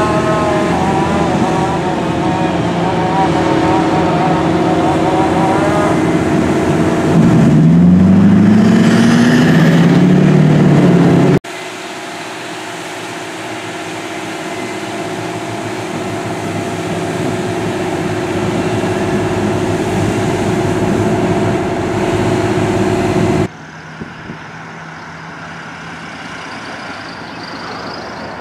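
Fire engines running with sirens wailing. A siren winds up in pitch about eight seconds in and is the loudest sound. After a cut, the pumper engines run steadily at a constant pitch, and near the end, after another cut, a quieter steady engine hum.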